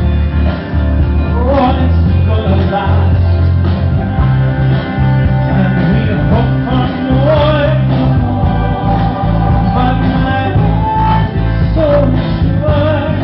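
Live band music: bass and guitar under a wavering lead melody line, played through a PA.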